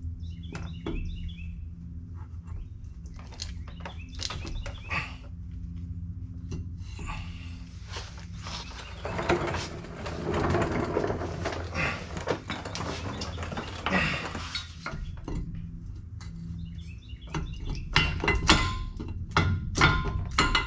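Hand work on a dump truck's driveline at the U-joint: scattered clicks and clinks of metal being handled, with a longer scraping rustle in the middle, over a steady low hum. A few short chirps come and go, and sharper taps pick up near the end.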